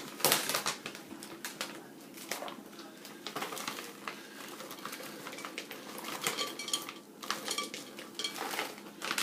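Frozen blueberries being added to a blender jar: a run of small hard clicks, rattles and clinks against the jar and utensils, with a few brief ringing clinks.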